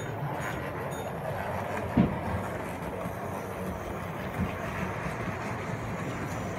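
Steady background noise of a model railway exhibition hall, with a single sharp knock about two seconds in and a softer one later.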